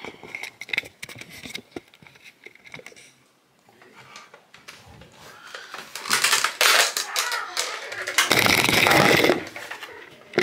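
Plastic clicking and rattling of a toy pump-action blaster being handled, then two loud, noisy bursts about six and eight seconds in.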